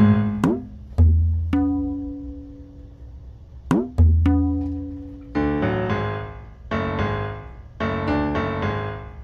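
Slow instrumental music of single struck and plucked notes that fade slowly, with deep bass notes about one and four seconds in and a quicker run of chords in the second half.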